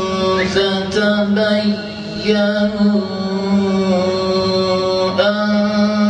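A man reciting the Quran in the melodic, drawn-out tajweed style, holding long notes and sliding between pitches, amplified through a microphone.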